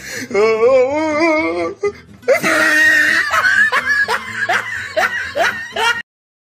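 A person laughing hard in long, wavering peals, then a louder run of repeated laughs over music. The sound cuts off abruptly about six seconds in.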